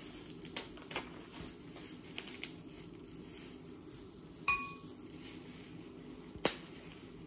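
Snow crab legs being snapped and cracked apart by hand, giving a few short sharp cracks of shell. The two loudest come about halfway and near the end, over a steady low room hum.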